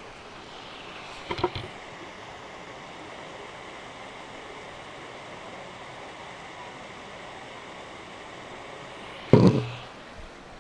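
Steady outdoor hiss with two knocks, a light one about a second and a half in and a louder thump near the end.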